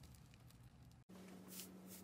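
Near silence: faint room tone, with a faint steady low hum that comes in about halfway.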